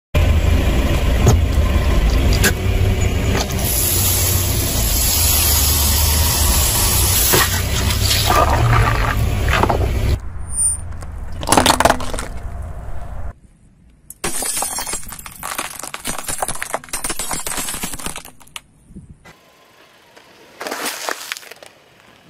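A car tyre rolling over plastic objects and crushing them, one clip after another, with crackling, creaking and popping. A low rumble runs under the first half. The loudest moment is a sharp crunch about a third of the way in, and the sound cuts abruptly between clips.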